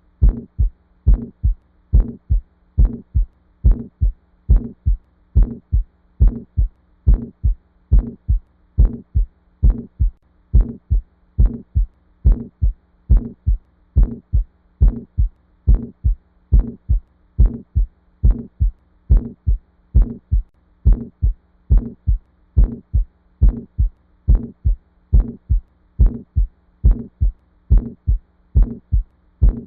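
Heartbeat heard through a stethoscope: paired lub-dub beats, steady and regular at about 70 a minute, with a faint steady low hum underneath.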